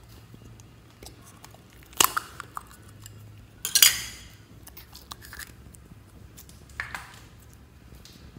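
Hard plastic ladybug-shaped slime container clacking as it is handled and pried open: a loud sharp clack about two seconds in, a longer clattering one just before four seconds, and a softer click near seven seconds.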